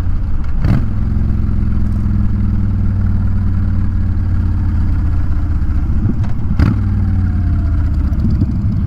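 Honda Fury's V-twin engine running steadily at cruising speed, heard from the rider's seat. Two short knocks cut through it, one about a second in and one about six and a half seconds in.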